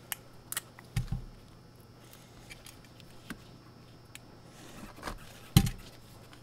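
Hand tools and small parts handled on a rubber work mat: scattered light clicks and taps, with a dull knock about a second in and a louder one near the end.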